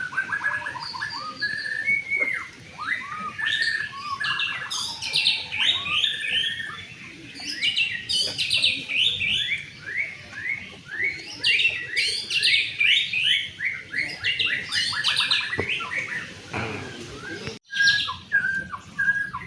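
White-rumped shama (murai batu) singing a long, varied song of rapid whistled phrases, many of them runs of quick falling notes. The sound drops out for an instant near the end.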